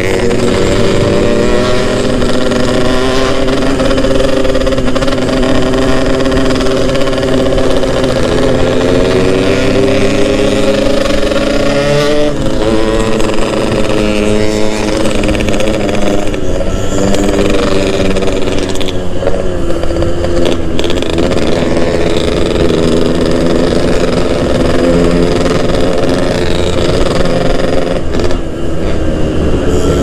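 Yamaha RX-King two-stroke single-cylinder motorcycle engine under way, its note rising and falling repeatedly as the rider accelerates and shifts.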